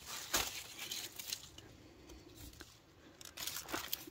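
Rustling and crinkling of cucumber vine leaves as lemon cucumbers are picked by hand, in scattered bursts with a few crackles, the largest near the start and again shortly before the end.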